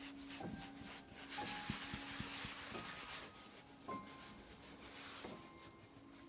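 Palms rubbing and rolling a ball of soft yeast dough on a floured work surface to round it into a bun: a soft dry rubbing, loudest about one to three seconds in.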